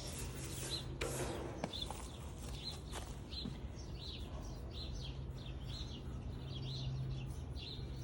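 A bird chirping, one short call repeated roughly every second, over the steady low hum of a central air conditioner's outdoor unit.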